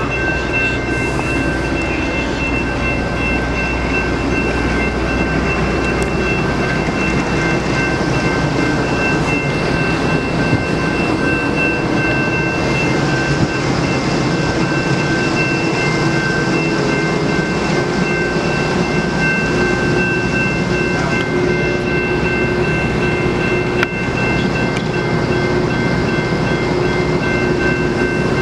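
Freight train noise: a steady rumble with thin high-pitched tones held over it, which drop out a few seconds before the end.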